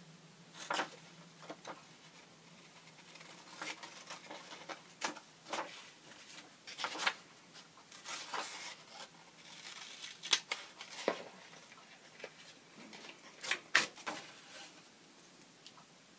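Scissors cutting through an old book page: a series of separate, irregularly spaced snips with paper rustling between them.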